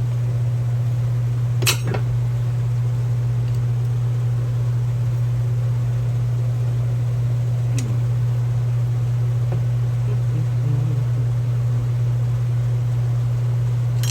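Steady low mechanical hum, like a shop fan, with a sharp metallic click about two seconds in and a lighter tick near eight seconds as the floor jack's arm is worked loose by hand.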